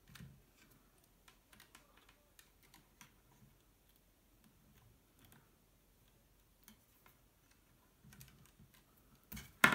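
Scattered light clicks and taps of multimeter test probes and wires being handled against the motor terminals of an opened cordless drill. A sharper knock comes near the end.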